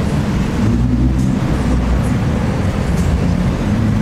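Car engine and exhaust running at low speed, heard from inside the cabin: a steady low drone.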